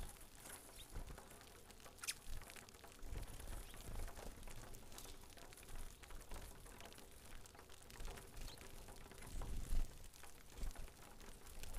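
A flock of saffron finches pecking and shuffling at rice grain on a board feeder: faint, irregular ticks and patter, with occasional low thumps.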